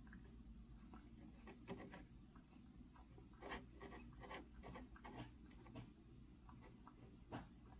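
Faint, irregular soft clicks and smacks of a cat eating, a few seconds apart, over a low steady room hum. The cat is recovering from tooth-extraction surgery for stomatitis.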